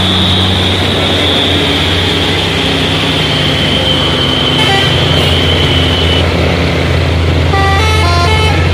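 Diesel engines of heavy Hino dump trucks running under load on a steep climb, a loud steady drone as one passes close and the next approaches. A steady high thin whine stops about six seconds in, and near the end a multi-tone horn sounds a quick run of stepped notes.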